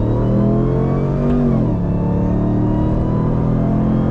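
Ram TRX's supercharged 6.2-litre V8 under hard acceleration, heard from inside the cab: the revs climb, drop at a gear change about one and a half seconds in, then hold as the truck pulls on toward highway speed.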